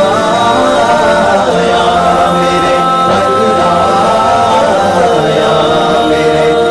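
Nasheed interlude: layered voices chanting and humming long held notes without words.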